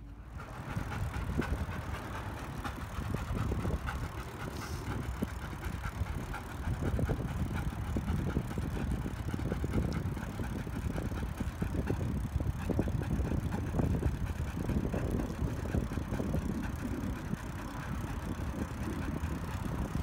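Bicycle rolling along a paved path: a steady low rumble of tyres on the pavement, with many light clicks and rattles.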